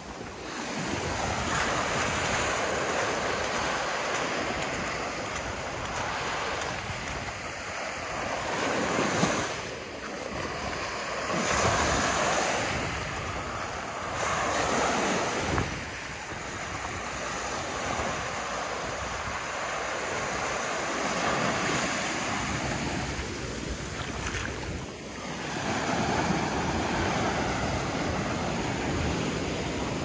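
Ocean surf: small waves breaking and washing up a sandy beach, swelling and easing every few seconds, with wind buffeting the microphone.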